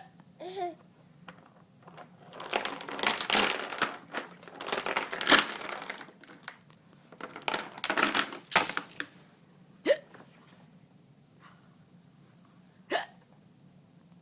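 A person hiccuping: short, sharp hics a few seconds apart, two of them near the end with a quick rising squeak of voice. In the middle come two longer, louder stretches of breathy noise.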